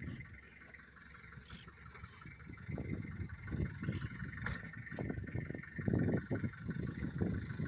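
Toyota Hilux pickup's engine running, getting louder and more uneven from about three seconds in.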